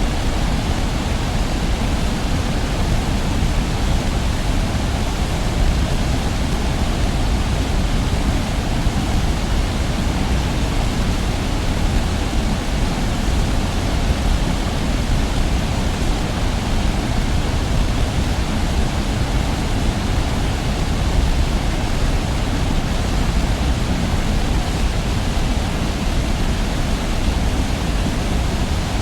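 Heavy waterfall heard from a distance: a steady, unbroken rush of falling water, with its weight in the low rumble.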